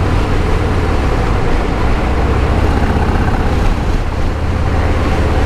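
Motorcycle riding at road speed: a steady engine drone under a constant rush of wind noise.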